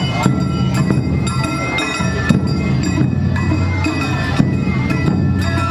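Awa Odori festival music played for the passing dancers: drums and ringing metal percussion in a quick, steady beat.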